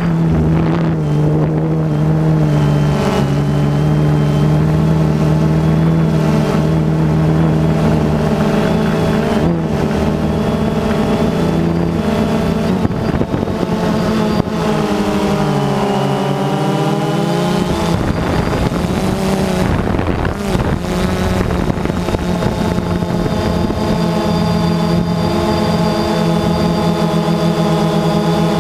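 DJI Phantom 2 quadcopter's brushless motors and propellers whining in flight, heard up close from a camera mounted on the drone. The pitch sags and wavers about halfway through, then settles back to a steady whine.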